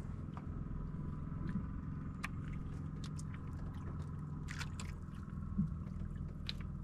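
Steady low hum of an engine running, with faint scattered clicks over it.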